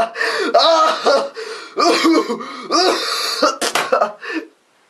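A man coughing on purpose: a run of about five coughs, one after another, that stops shortly before the end.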